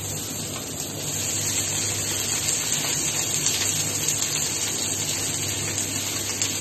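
Oil sizzling in a frying pan of sautéed onion and garlic, the hiss swelling about a second in as sliced mushrooms are tipped in from a colander.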